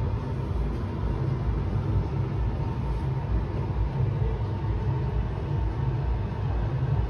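Steady low rumble with uneven buffeting, heard from inside a rising Ferris wheel gondola.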